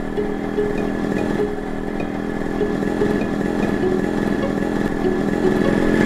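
Cartoon motorcycle engine sound effect running at a steady, even buzz, with no revving.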